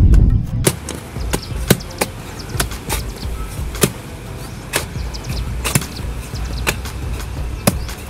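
Sharp knocks at a steady pace of about one a second, with a few softer ones in between, over a low steady rumble.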